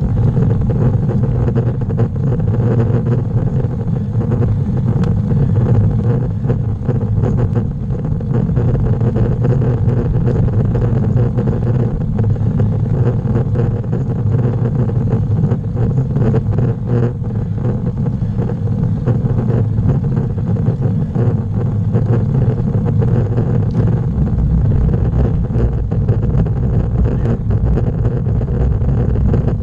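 Steady rumble of wind and road vibration on the microphone of a camera mounted on a moving bicycle.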